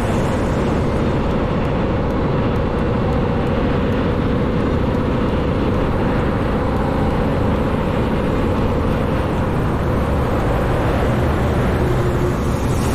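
Scania truck's engine and road noise, a loud steady drone held at an even pitch. The truck is coasting down a long steep descent at a held speed of about 50 km/h in a low gear.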